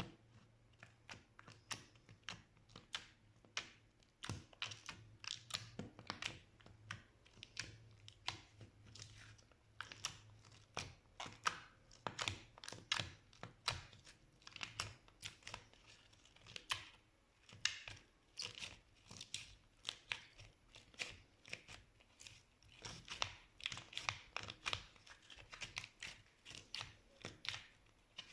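Slime being squished and worked by hand, giving irregular sticky clicks, pops and crackles several times a second.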